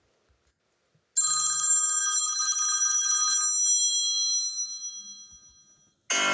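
An iPhone XR alert tone played on the phone: a single bell-like chime about a second in, with a brief low buzz at its start, ringing out and fading away over about five seconds. The next tone, a piano-like melody, starts just before the end.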